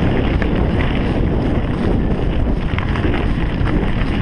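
Wind buffeting a GoPro's microphone on a mountain bike riding a dirt singletrack: a steady low rumble with scattered light ticks and rattles from the bike over the ground.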